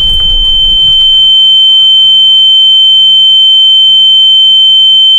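A loud, steady, high-pitched ringing tone, the ear-ringing sound effect that follows a nuclear explosion. The last of the blast's low rumble fades out in the first second.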